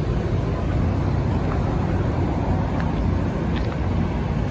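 Steady low rumbling noise, strongest in the bass and unbroken throughout.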